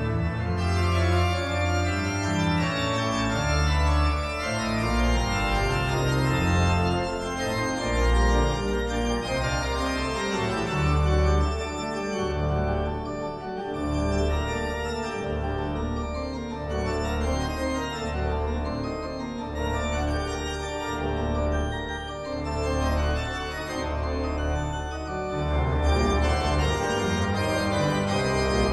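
Pipe organ playing full, sustained chords over a bass line that steps from note to note about once a second.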